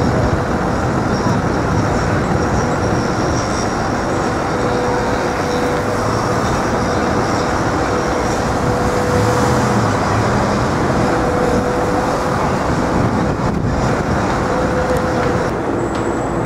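Steady city street traffic noise, with a steady hum running through most of it.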